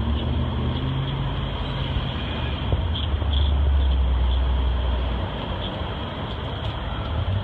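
Car engine running with a steady low hum that swells for a couple of seconds in the middle and then eases.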